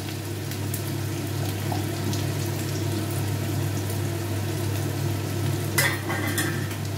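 Chopped onions frying in mustard oil in a steel kadai: a steady sizzle over a low hum, with a sharp metal clink about six seconds in.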